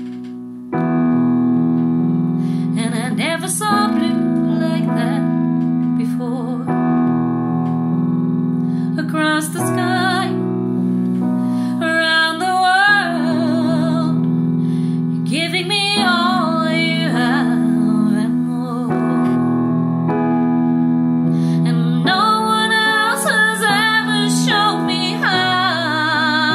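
A woman singing a song over held piano chords, her voice coming in a couple of seconds after the chords.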